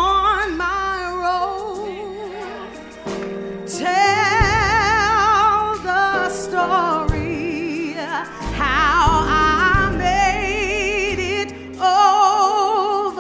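Gospel song: a solo singer holding long, drawn-out notes with heavy vibrato over sustained chords and a deep bass line.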